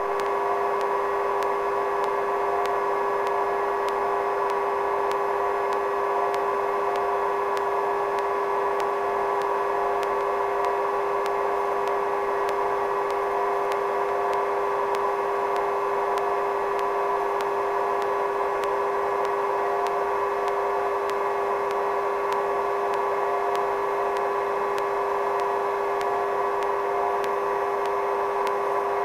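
Sikorsky helicopter's turbines and gearbox giving a steady whine, several tones held level with no change, while the helicopter hovers under load.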